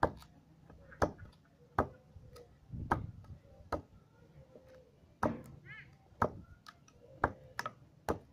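A kwaiken-Bowie knife's high-speed-steel tip is stabbed again and again into a log of water-apple wood, testing how well the tip holds up to stabbing and prying. It makes about ten sharp knocks, roughly one a second, with a quick double strike near the end.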